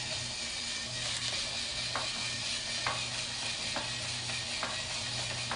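Small battery-powered drill with a screwdriver bit running steadily as it backs a screw out of a toy fire truck, with a faint click repeating a little under once a second.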